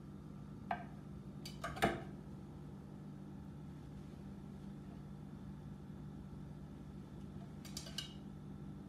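Light clicks and taps of a kitchen knife on a wooden cutting board and against a mixing bowl as boiled eggs are halved and their yolks scooped out. There is one tap under a second in, a louder cluster near two seconds, and a few more near the end, over a steady low hum.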